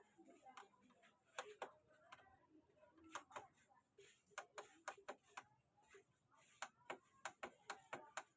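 Faint clicking of a CRT TV's front-panel push buttons being pressed over and over at irregular intervals, with the volume up and down keys being tested after repair.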